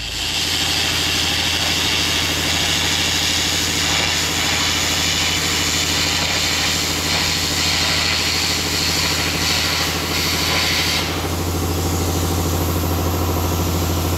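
Air carbon arc gouging with an ArcAir torch and a 3/16 carbon rod: a loud, steady hissing roar of the arc and compressed-air blast cutting out a crack in a steel excavator boom, over a steady engine hum. The gouging stops about eleven seconds in, leaving the engine running.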